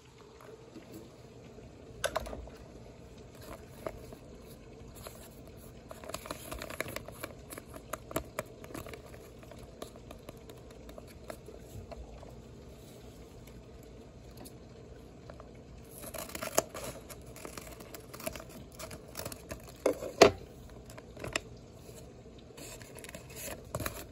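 A handmade paper blind bag being handled and opened: paper rustling and crinkling in uneven spells, with scattered sharp taps and clicks.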